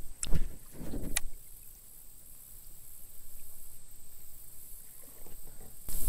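Two sharp knocks in the first second or so, from handling gear in a plastic fishing kayak, then faint, even background on the water.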